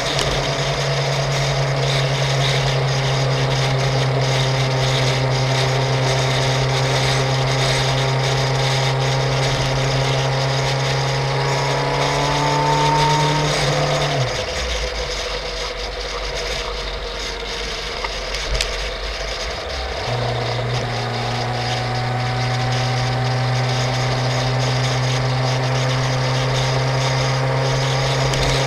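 Suzuki GSX-R750 K5 inline-four engine running steadily at road speed. A little past midway its note rises slightly, then drops away for about six seconds before coming back.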